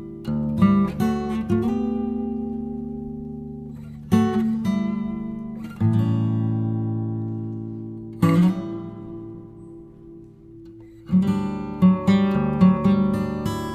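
Background music: acoustic guitar chords strummed and plucked, each left to ring and fade. One chord dies away slowly through the middle, and quicker strumming picks up near the end.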